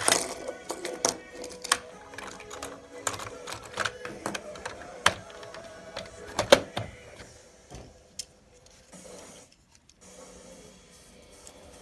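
A run of irregular sharp clicks and knocks over a faint steady tone, thinning out and nearly stopping about eight seconds in.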